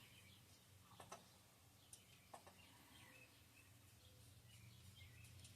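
Near silence, with faint bird chirps in the background and a few light clicks.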